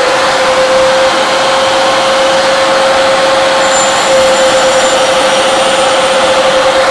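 DCA mini dustless table saw's motor running at full speed with a steady high whine, its 4-inch blade spinning as a short piece of wood is fed through against a stop block.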